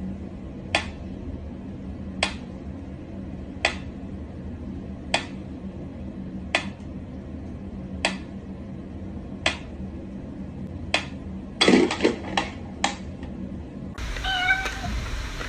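Pyramid-shaped mechanical metronome ticking slowly, single sharp ticks about one and a half seconds apart. Near the end comes a quick cluster of louder clicks and a short cat meow.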